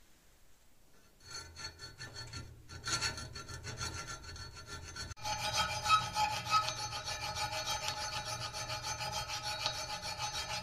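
Steel hand file scraping back and forth across a wootz steel katana blade clamped in a vise, in rapid rasping strokes with a metallic ring. The filing starts about a second in, pauses briefly near the middle, then goes on louder.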